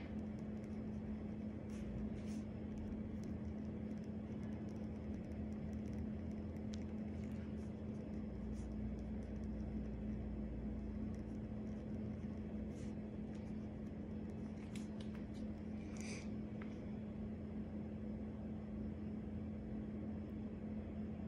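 A steady low hum in a small room, with a few faint ticks and scratches from a pen writing on paper.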